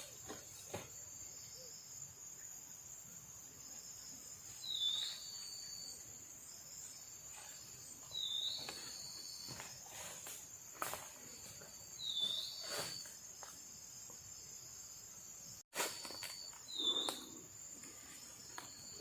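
Night-time tropical forest insect chorus, a steady high-pitched buzzing. A short hooked call repeats about every four seconds over it, with scattered light knocks and rustles.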